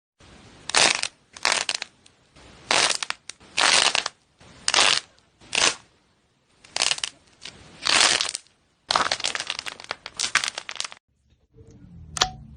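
Slime being squeezed and pressed by hand: about a dozen wet squishing crackles in irregular squeezes, which stop about a second before the end. Near the end there is a single short click.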